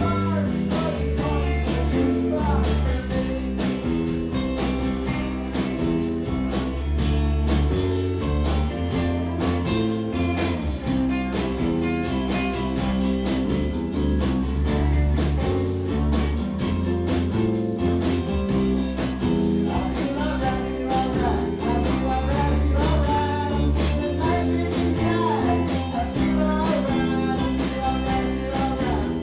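Live rock band playing a bluesy rock-and-roll song: drums keeping a steady beat under bass guitar and electric guitars.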